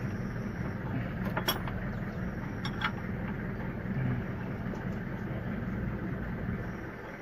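Two short metallic clicks, about a second and a half in and again just over a second later, from hand work on the timing belt drive of a Toyota 2E engine, over a steady low background rumble.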